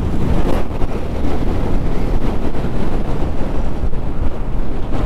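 Loud wind noise on the microphone of a moving motorcycle, over the steady low drone of its engine and tyres on the road.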